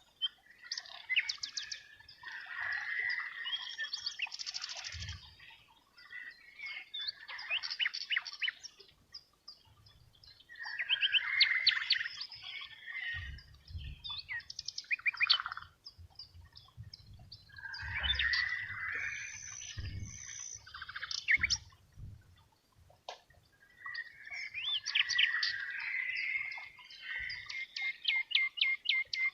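Birdsong: quick chirps and rapid trills in phrases of a few seconds each, with short pauses between phrases.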